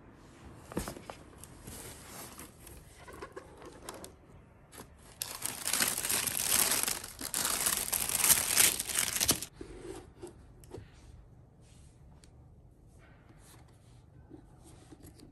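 Tissue paper rustling and crinkling as a boot is unwrapped from its shoebox, loudest for about four seconds in the middle, with lighter handling rustles before and after.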